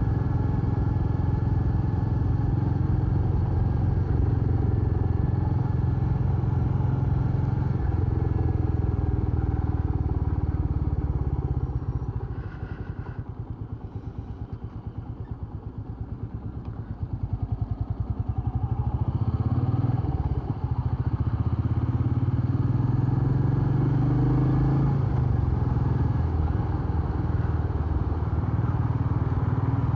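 Royal Enfield Meteor 350's single-cylinder engine running while riding. A little before halfway it falls back to a low, quiet running for several seconds, then picks up again with a rising pitch.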